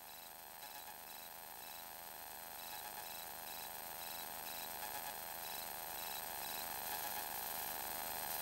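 ALTO NG light aircraft's engine and propeller droning steadily in cruise, heard in the cockpit, growing slowly louder.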